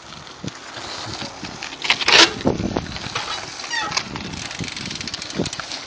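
Mountain bike tyres rolling and crunching over the packed gravel of a pumptrack, with scattered knocks. About two seconds in there is a loud rush of tyre noise as a rider passes close. A quick run of short falling chirps comes a little later.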